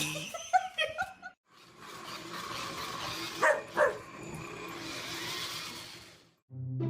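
A dog gives two quick, short barks about halfway through, over steady background noise.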